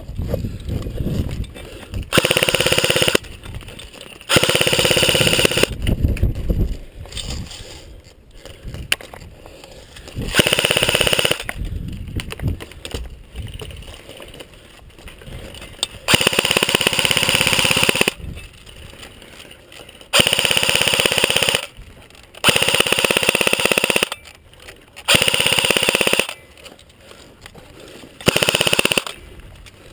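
Airsoft rifles firing full-auto: about eight bursts, each one to two seconds of rapid fire, with quieter gaps between them.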